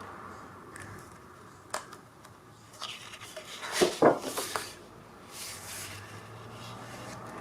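Scrapbook paper and craft pieces being handled: sheets rustling and sliding, with a sharp click and a few light knocks in the middle.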